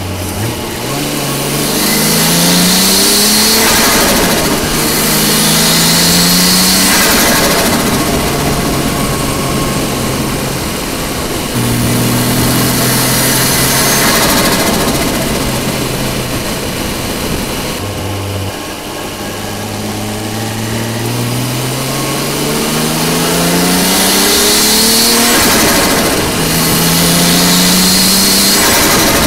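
Nissan RB25DET Neo turbocharged 2.5-litre straight-six, heard from inside the engine bay while the car accelerates through the gears. The engine note climbs in pitch in several pulls, each broken by a drop at a gear change, with stretches of steadier cruising between them. Strong turbo and intake hiss rides over the hardest pulls.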